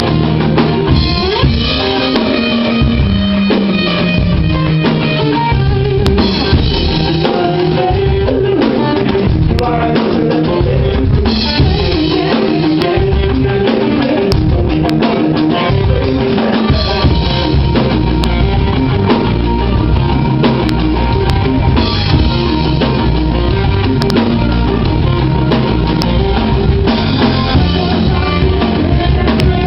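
Live experimental prog-rock band playing loudly, drum kit to the fore with guitar and bass, a low line sliding downward a few seconds in.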